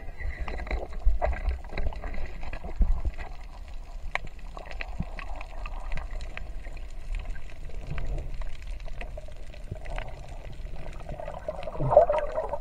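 Underwater sound heard by a submerged camera: a low rumble of water movement with scattered clicks and crackles, and a louder bubbling gurgle near the end.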